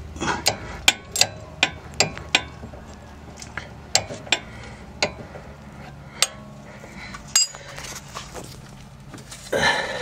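Sharp metallic clicks and clinks from a wrench working the rusted nut off a 2009 Toyota Corolla's front sway bar link, about a dozen at an uneven pace, thinning out after about four seconds. A short scrape comes near the end.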